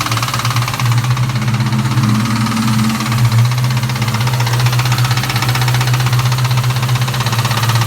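1998 Ford Mustang GT's 4.6-litre V8 idling steadily with a fast, even ticking. The owner has found nothing wrong under the valve covers and does not know the cause.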